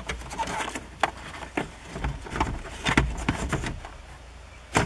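Scattered plastic clicks and knocks as a 2004–2008 Ford F-150's instrument cluster and dash trim are handled and set back in place, with a sharper knock near the end.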